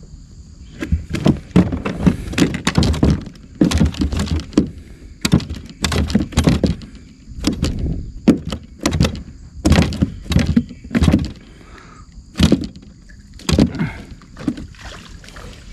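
A run of irregular knocks and thumps, often more than one a second, from fishing tackle being handled aboard a plastic kayak.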